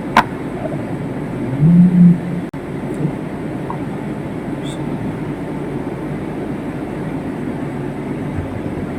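Steady low rumbling background noise, with a sharp click just after the start and a brief low hum about two seconds in.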